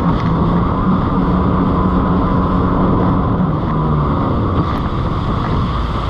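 Jet ski engine running steadily under way, with wind on the microphone and rushing water; about four seconds in the engine note drops and fades.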